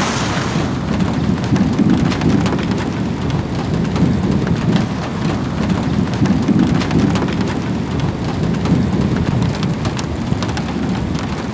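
Rain pattering on a car's roof and windshield: many sharp taps of drops over a steady low rumble.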